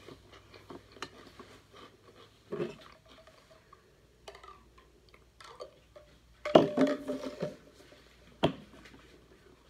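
Objects handled on a stone kitchen countertop: scattered light clicks and knocks, a louder clatter with a brief ringing tone about six and a half seconds in, and one sharp knock about two seconds later.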